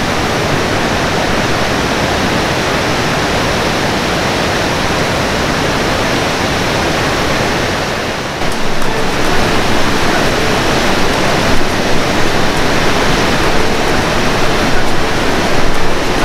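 Steady rush of river water pouring over a low weir and through rocky rapids. It gets a little louder and more uneven about halfway through.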